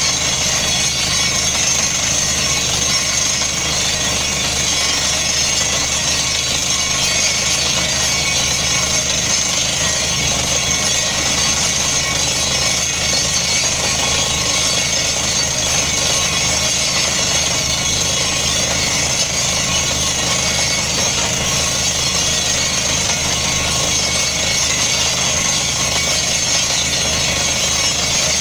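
Truck-mounted borehole drilling rig drilling a water well with compressed air. Its engine and compressor run steadily as air and rock dust blast out of the hole, with a strong high hiss over the din.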